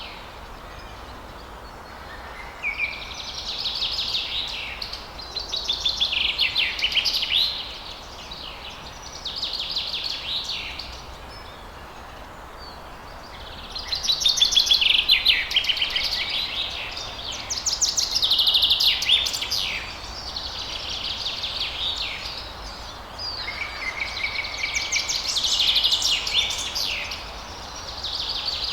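Songbirds singing in long runs of rapid trills and twitters, coming in stretches of a few seconds with short pauses, over a steady rush of falling water.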